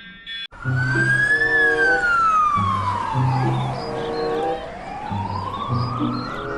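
Fire engine siren wailing in one slow cycle: a short rise, a long fall and a rise again. It starts about half a second in, as the steady ringing of a fire alarm cuts off. Low background music plays underneath.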